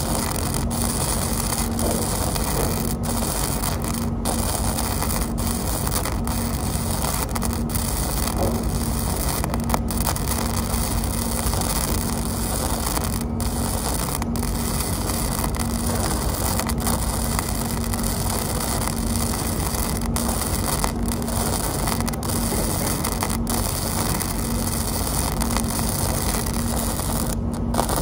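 Electric arc welding on a steel beam: the arc crackles steadily and without a break, over a steady low hum.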